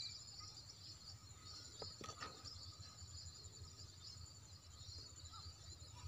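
Faint steady insect chorus: a high, finely pulsing trill over a thin continuous whine.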